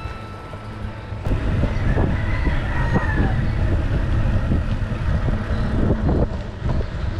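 Mountain bike rolling over a rough dirt track, with wind buffeting the microphone and scattered clattering knocks from the bike. The rumble starts about a second in.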